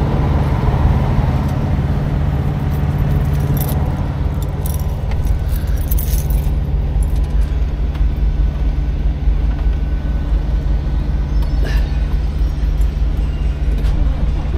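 A truck engine running at a steady idle, a constant low hum. Light metallic clinks come in about four to seven seconds in.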